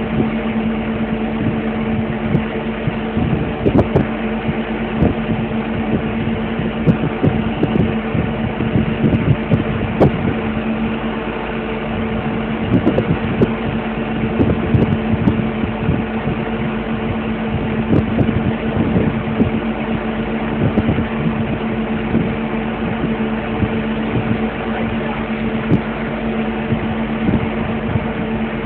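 Heavy diesel engine running steadily, a constant low hum heard from inside a cab, with irregular knocks and rattles.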